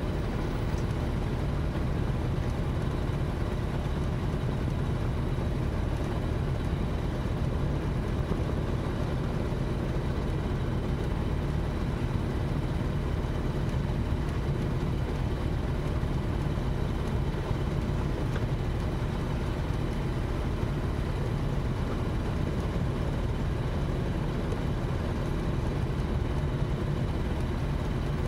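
Small single-engine propeller aircraft's engine running steadily, heard from inside the cockpit.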